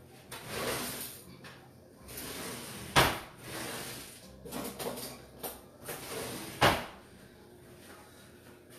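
Kitchen drawer sliding open and shut, with a sharp knock about three seconds in and another near seven seconds as it bangs closed.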